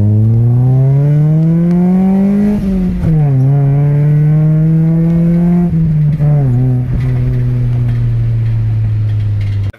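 Honda H22A four-cylinder engine in a fourth-generation Prelude, heard from inside the cabin, accelerating hard with VTEC working. Its pitch climbs for about two and a half seconds, drops at a gear change about three seconds in, and pulls again. It settles lower after a second drop about six and a half seconds in, runs steadily, and cuts off abruptly near the end.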